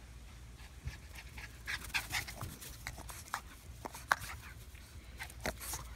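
A Boston terrier panting hard in quick, irregular breaths.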